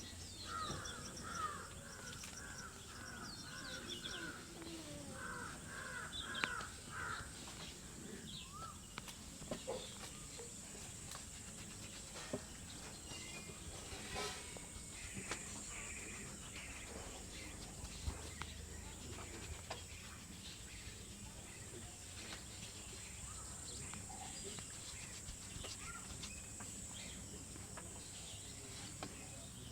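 Crows cawing: two runs of short repeated caws in the first seven seconds, over steady background noise with scattered sharp taps.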